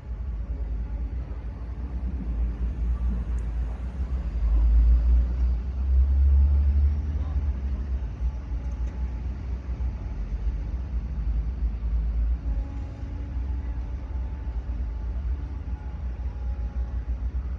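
Engine of a heavy construction machine running with a deep rumble, growing louder about four seconds in and easing back after about seven seconds.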